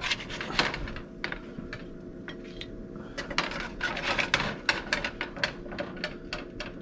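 A slotted spatula scraping and clicking against a nonstick frying pan as seared fish fillets are scooped out, with a steady low hum underneath. The scrapes come thickest about three to five seconds in.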